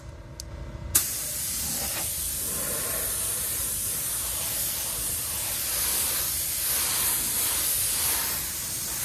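Clear coat being sprayed onto a repaired alloy wheel: after a click about a second in, a steady hiss of spray runs on without a break.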